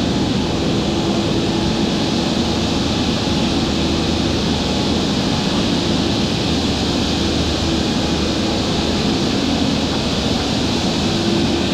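Concrete floor saw running steadily as it cuts through a warehouse concrete slab, a constant high hiss over a steady low engine hum.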